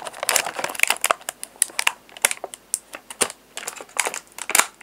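Stiff plastic toy packaging being handled: a run of sharp clicks and short crinkling rustles as the blister tray and ties are worked at.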